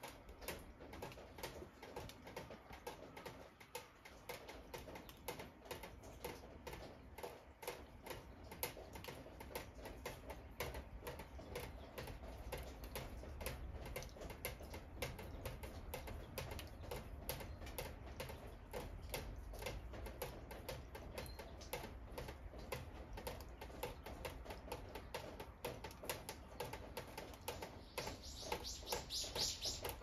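Faint, steady run of rapid small clicks or ticks, with birds chirping near the end.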